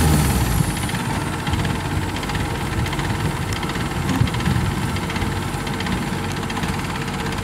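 Kubota DC93 combine harvester's diesel engine running steadily, with a low rumble.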